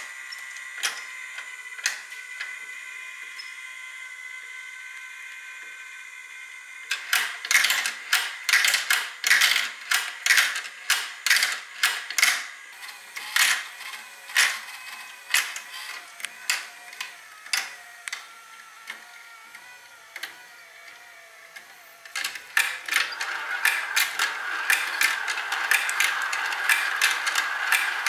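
Plastic marble run: a motorised chain-lift elevator runs with a steady whine while glass marbles click against its cups and the track. The clicks come thick and fast from about seven seconds in. Near the end, marbles roll round a plastic funnel bowl with a continuous rolling sound under the clicks.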